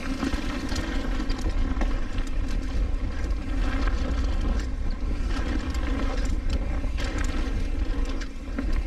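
Mountain bike riding down a trail: wind buffeting the on-bike or helmet camera microphone with a steady low rumble, and tyres and frame rattling and clicking over rough ground.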